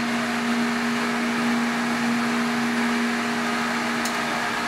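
Steady machine hum in an engine dyno cell: a constant drone that holds one pitch throughout, with no revving.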